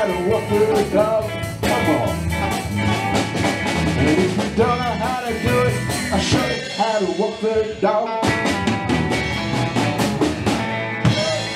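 Live rock band of lead and rhythm electric guitars, bass guitar and drum kit playing an instrumental passage with a steady beat. The bass and drums drop out briefly about two-thirds of the way through, and the band closes on a held chord near the end.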